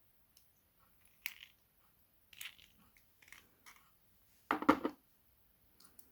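Small metal clicks and scrapes of a padlock's core and pin-tumbler pins being handled with tools, with a short clatter about three-quarters of the way through.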